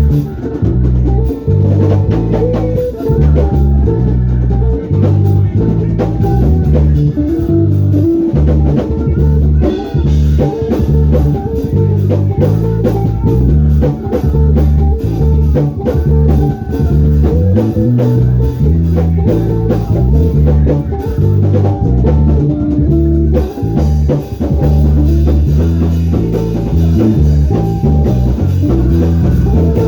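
Gospel praise band music: bass guitar, guitar and drum kit playing a steady beat with a moving bass line.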